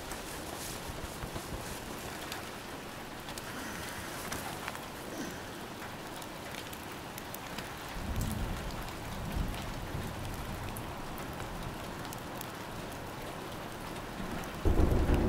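Steady rain falling, with a low rumble of thunder about eight seconds in and a louder roll of thunder starting near the end.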